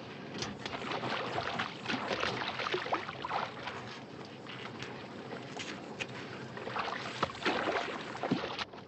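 Water splashing and sloshing irregularly over a steady rushing noise.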